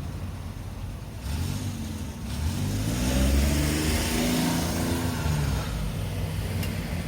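A car accelerating past, its engine pitch rising about two seconds in and then easing off, with tyre noise over a steady low traffic hum.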